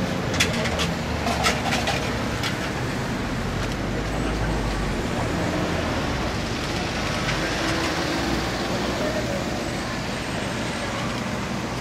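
923-series Doctor Yellow Shinkansen inspection train rolling slowly over a level crossing: a few sharp wheel clacks in the first couple of seconds, then a steady rumble.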